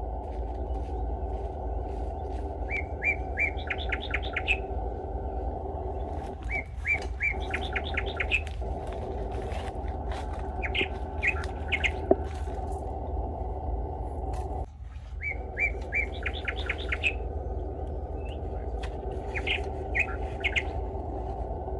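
A songbird repeating a short phrase of a few chirps ending in a quick trill, about every three to four seconds, over a steady low background noise.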